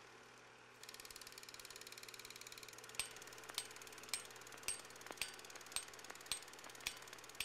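Faint film projector running: a rapid, steady flutter of film through the gate starts about a second in, joined from about three seconds in by a sharp click roughly twice a second.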